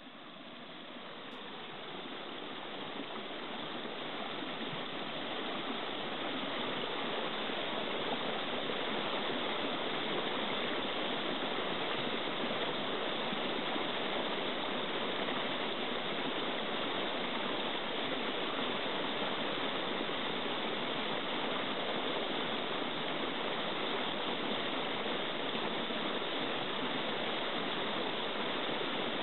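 Steady rushing of a flowing stream, fading up over the first eight seconds or so and then holding level.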